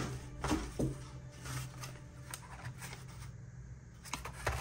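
Rustling and light knocks of products being handled and lifted out of a packed box, with a few sharper taps near the end.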